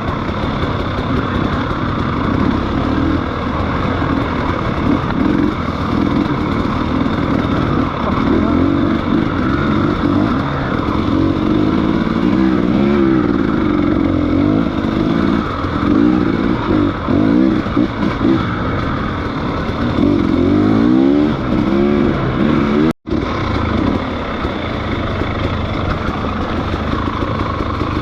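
Motorcycle engine running while riding, its pitch rising and falling over and over as the throttle is opened and closed. The sound cuts out for an instant about three-quarters of the way through.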